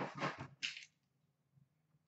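Rustling and handling noise from trading-card packs and their cardboard box being picked up, a few short crinkly bursts in the first second.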